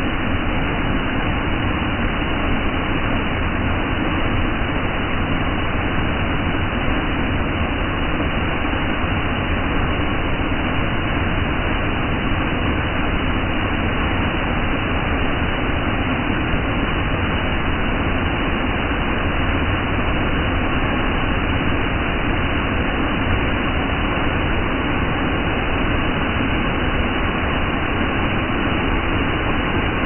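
Water cascading over a stepped concrete weir, a steady rushing noise with no breaks.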